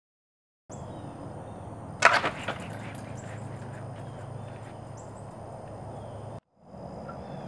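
Wooden golf-ball catapult firing: a sudden sharp crack and short clatter about two seconds in as the arm swings up and hits its stop, over a steady high-pitched background drone.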